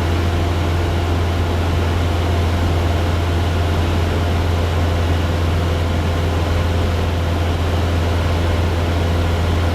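Cessna 172's piston engine and propeller droning steadily in level cruise, heard from inside the cabin as a constant low hum with no change in pitch.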